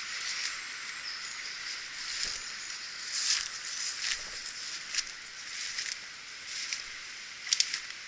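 Footsteps and brushing through dense, leafy undergrowth and ferns, with short crackles and swishes every second or so, over a steady background hiss.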